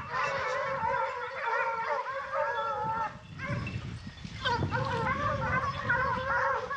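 A pack of Porcelaine hounds giving tongue as they run, many overlapping wavering cries at once. The cries thin out briefly near the middle, then pick up again.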